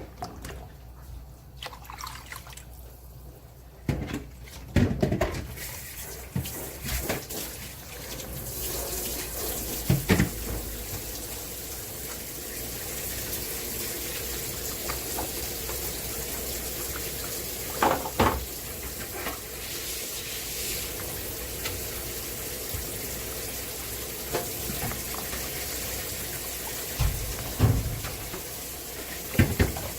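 Water running from a kitchen tap into a sink. The flow is steady and fuller from about eight seconds in, with a few knocks and clatters of things handled in the sink.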